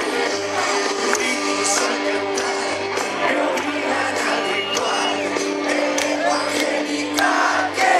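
Music from a song: sustained instrumental chords over a steady beat.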